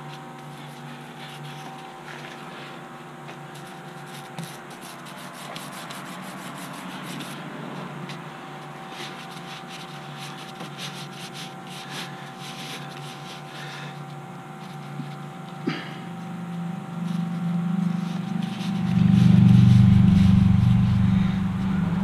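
Brush rubbing and scraping on wet, painted canvas as it is worked smooth, over a steady faint hum. In the last few seconds a low rumble swells up and becomes the loudest sound.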